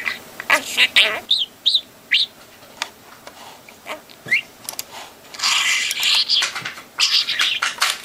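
Budgerigar chattering, with talk-like chatter among quick chirps and short rising whistles, then a dense scratchy warble for about two and a half seconds near the end.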